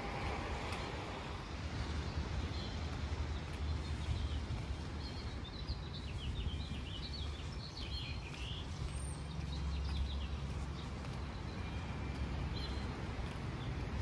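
Outdoor morning ambience: small birds chirping in quick, short calls from about two seconds in through the middle, and once more near the end, over a steady background rumble.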